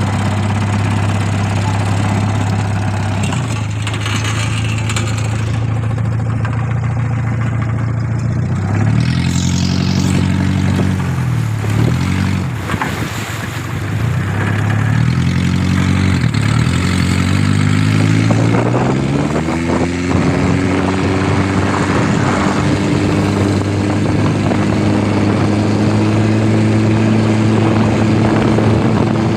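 Car engine driving a katinting longtail boat, running steadily at low speed. It is revved up and back down twice, then accelerates about two-thirds of the way in and holds a higher, steady speed.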